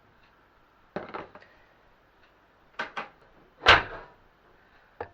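A few separate knocks and clunks of cookware being handled, a pair in the middle and the loudest just after.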